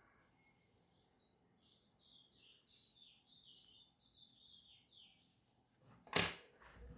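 Faint, high bird chirping in the background: a quick run of short falling chirps. Then one sharp click about six seconds in.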